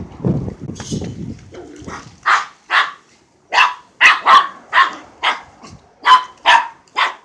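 Dog barking repeatedly, about a dozen short sharp barks, some in quick pairs, starting about two seconds in after a low rumbling noise.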